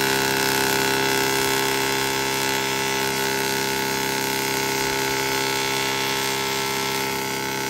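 Tesla coil firing continuously, its sparks playing over a CD mounted on top: a loud, steady buzz at one constant pitch. The discharge is burning away the disc's metal layer.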